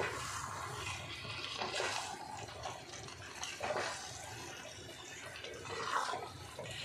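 Spatula stirring and scraping chicken pieces through thick, wet masala in an iron kadhai, a wet squelching sound that comes in irregular strokes.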